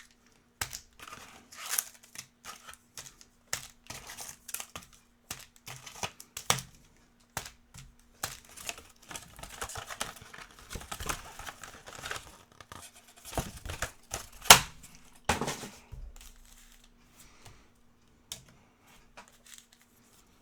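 Trading-card pack wrappers being torn open and crinkled, with cards handled: irregular crackles and snaps, the loudest about fourteen seconds in.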